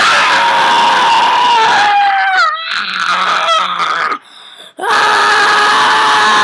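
A person's voice letting out long, high-pitched held screams, each sliding slowly down in pitch. There is one from the start, wavering about halfway through, and after a short break another begins about five seconds in.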